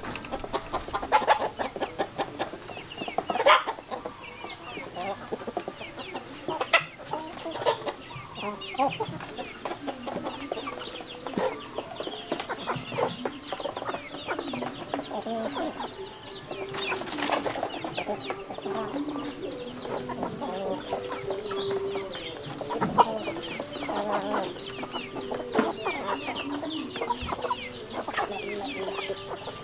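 A flock of chickens clucking continually as they feed, with several sharp clicks among the calls.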